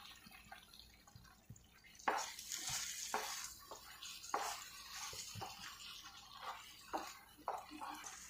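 Thick moong dal halwa being stirred in a pan with a spatula as it cooks in ghee: irregular soft scrapes and wet plops about once a second over a faint sizzle. This is the stage where the ghee begins to separate from the halwa.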